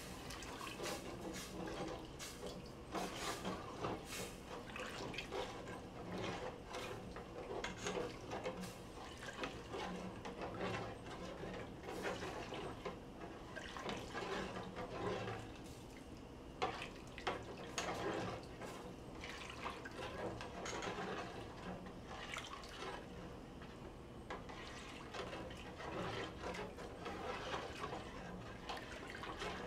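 A spoon stirring a milky liquid with browned sausage in a large stainless steel pot: irregular sloshing and splashing, with small clicks of the utensil against the metal.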